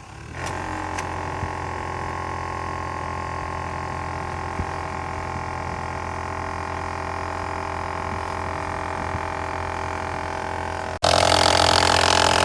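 2006 Toyota Solara's air-conditioning running with a steady, loud grinding noise. It starts after a couple of clicks about half a second in and holds level; about 11 seconds in it comes in much louder.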